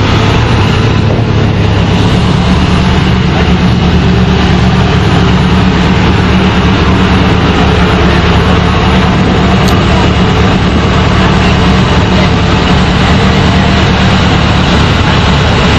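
A vehicle engine running steadily with road noise, loud and unbroken throughout.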